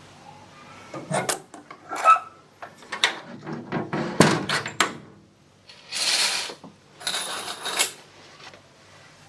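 A house window being worked by hand: a run of clicks and knocks from its latch and frame over about four seconds, then two short scraping slides about a second apart.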